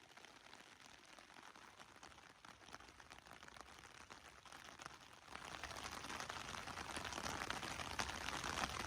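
Rain falling, a faint hiss with many small pattering drops, louder from about five seconds in.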